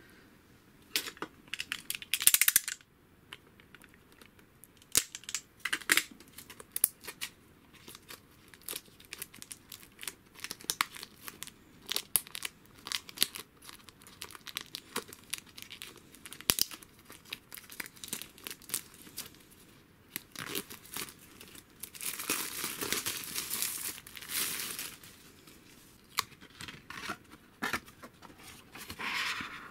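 Plastic shrink-wrap being torn and peeled off a Blu-ray case, crinkling and crackling with many small clicks. There is a sharp tear about two seconds in and longer stretches of tearing near the end.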